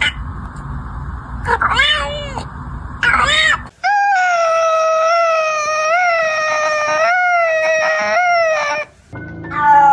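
Domestic cats making odd cries: two short meows that rise and fall, then one long, wavering yowl held for about five seconds.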